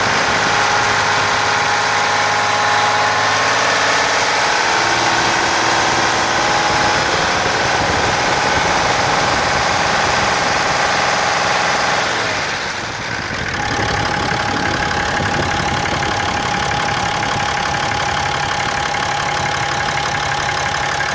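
Cummins 6.7-litre turbo-diesel inline-six of a 2017 Ram idling steadily, purring along with a steady whine over the engine note. There is a brief dip in level about twelve seconds in.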